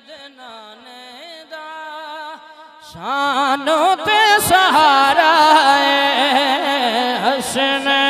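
Male devotional naat singing, amplified: soft held melodic notes at first, then about three seconds in the lead voice comes in loudly with an ornamented, wavering melodic line over a steady held low note.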